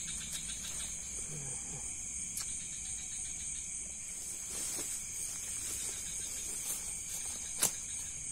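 A steady chorus of night insects such as crickets: a high, evenly pulsing trill over a lower continuous buzz. A single sharp click about seven and a half seconds in.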